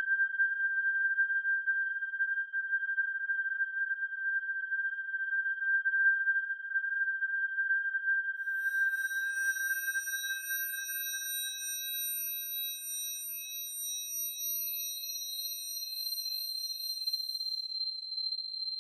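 Electronic music of pure sine tones: one steady high tone is held, then about halfway in several higher steady tones come in above it, and the first tone fades out about three-quarters of the way through.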